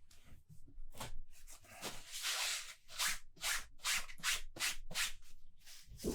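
A person sniffing a glass of IPA repeatedly to take in its aroma: short breathy sniffs about two a second, with one longer inhale about two seconds in.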